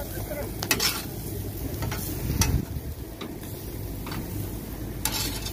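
Chicken sizzling on a charcoal grill while a long metal spatula scrapes and clacks against the steel grate, turning and gathering the pieces. There are several short scrapes and knocks, the strongest about halfway through.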